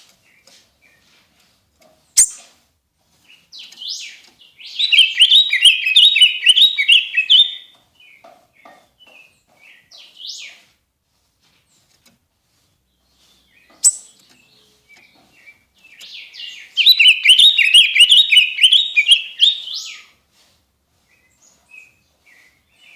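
A songbird kept as a 'cardenal azul' (blue cardinal) singing two long phrases of fast, rapidly repeated high notes, about ten seconds apart, with scattered short chips between them. Two sharp clicks are heard, one a couple of seconds before each phrase.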